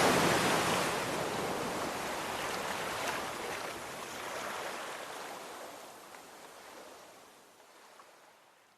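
Sea waves washing ashore, a steady rushing surf that fades out gradually to near silence.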